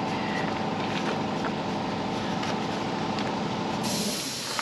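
A motor running steadily with a constant hum, with a few faint clicks over it; the hum drops away about four seconds in and a short hiss rises near the end.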